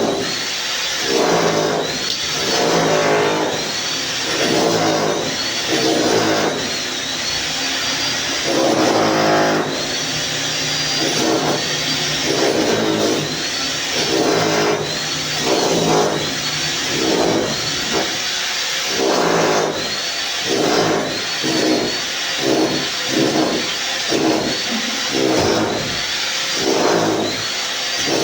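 A motor running in repeated bursts, its pitch rising and falling about every one to two seconds, like a power tool being revved and eased off under load.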